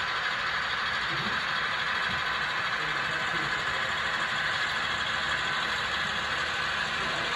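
Model diesel locomotives running past on a model railroad layout, giving a steady engine-like hum and hiss.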